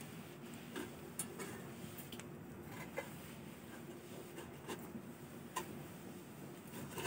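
Faint, scattered light clicks and taps, about one every second or so, as a marinated whole chicken is handled and set down on a perforated aluminium idli-steamer plate.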